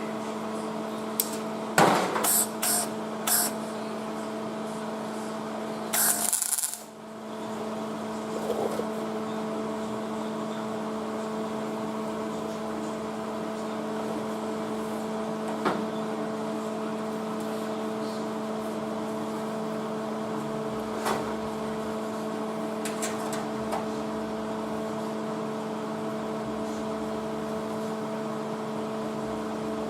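A steady machine hum with a few sharp clicks and knocks near the start and a short hiss about six seconds in, after which the hum dips briefly and comes back.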